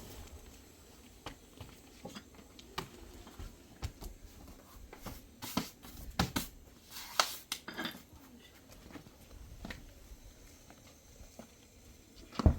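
Irregular light knocks and clicks in a small room, a few louder ones in the middle and the loudest knock near the end.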